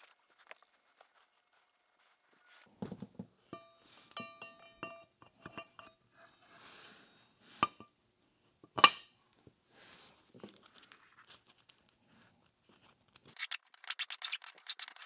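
Oiled steel shaft and bushed column housing of a tool and cutter grinder handled and fitted together on a workbench: scattered metal clinks with a brief ringing ping, and one sharp metal knock about nine seconds in as the shaft goes into the housing. Near the end, a quick run of fine scratchy ticks.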